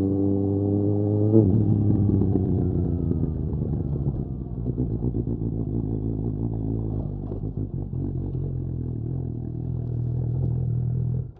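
Suzuki GSX-S 750's 750 cc inline-four through a Mivv Storm aftermarket exhaust. The revs climb, then drop sharply about a second and a half in and keep falling as the bike slows. The engine settles to a low, steady run, then the sound cuts off abruptly.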